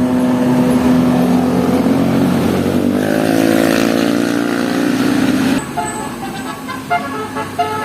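A bus goes by with its engine droning loudly; the drone cuts off suddenly about five and a half seconds in. Then a Basuri telolet horn plays a quick run of short notes at different pitches.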